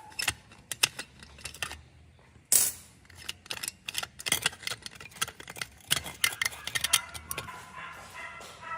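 Rapid, irregular clicks and clatter of small hard objects being handled, with a short, loud scraping noise about two and a half seconds in.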